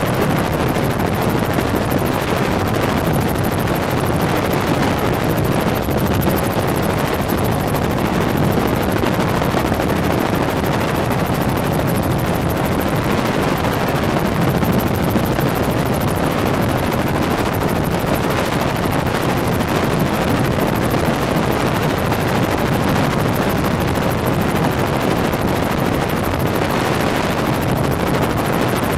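Helicopter in flight, heard from on board: a loud, steady rush of rotor and engine noise that does not change.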